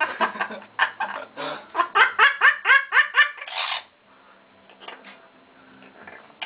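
Pet parrot giving a fast run of repeated calls, about four a second, which stops a little past halfway; faint light ticks follow.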